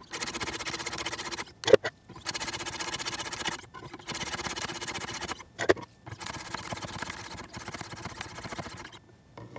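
Paired sharpening stones of a Wicked Edge guided sharpener stroking alternately down both sides of a clamped knife blade: an even, rapid rasping scrape in four runs with short pauses between them, as the stones are swapped for finer grits toward the finishing stone.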